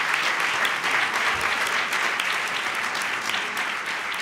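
Audience applauding, many hands clapping at a steady level that slowly eases off towards the end.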